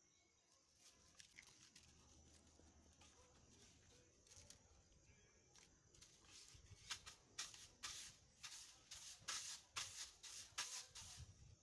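Stiff-bristled broom swept across a concrete floor: quick brushing strokes, about two a second, begin about halfway through after a faint start.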